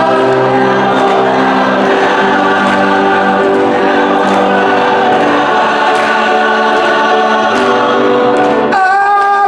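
Choir singing long held notes in gospel style, many voices together. A stronger single voice comes in with a sliding note just before the end.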